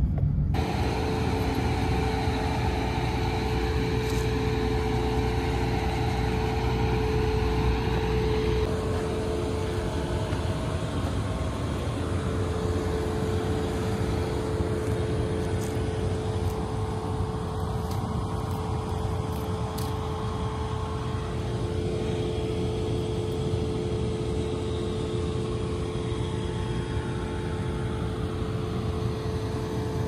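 Harvest machinery running steadily, a continuous engine-like drone with a steady hum over a low rumble. The low rumble eases about nine seconds in.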